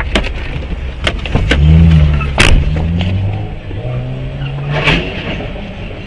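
A car engine running, its pitch rising about one and a half seconds in and shifting again later, with several sharp knocks, the loudest about two and a half seconds in.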